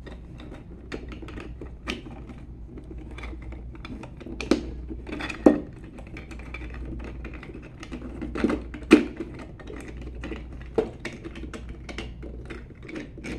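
Irregular small clicks and taps of 3D-printed plastic gears and a crank rod being handled and worked through a spring, with a few sharper knocks in the middle.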